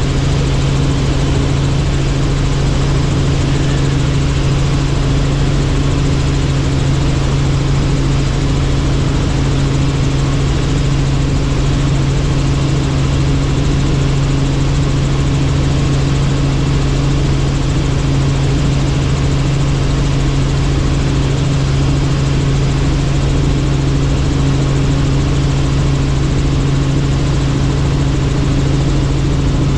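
Helicopter's engine and rotors running, heard from on board: a steady, unbroken drone with a constant low hum.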